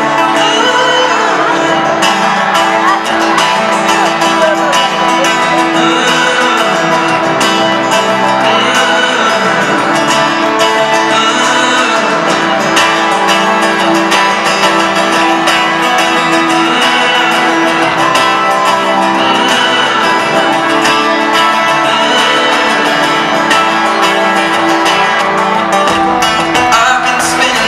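Live music amplified through an arena PA: a male singer with a strummed acoustic guitar, heard from far back in the hall.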